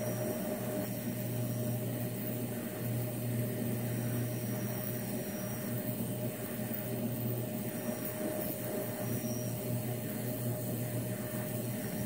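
Two ultrasonic cavitation heads running in glasses of water, one of them on its highest setting: a steady electrical hum with a steady mid-pitched tone. A faint high tone comes and goes several times.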